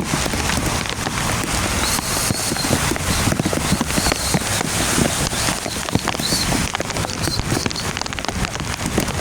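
Heavy storm rain falling steadily, with many sharp individual drop hits on hard surfaces close by.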